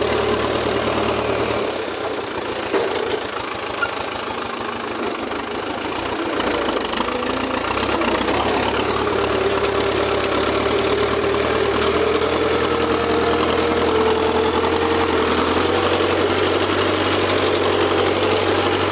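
Valmet 86 iD tractor's diesel engine running steadily at low throttle under load while its front blade pushes brush. It drops a little in level for a few seconds about two seconds in, then steadies.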